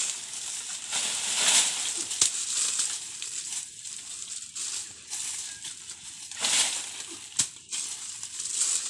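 Mango tree leaves and branches rustling in swells as a long pole is jabbed up into them, with two sharp knocks, one about two seconds in and one about seven seconds in, over a steady high hiss.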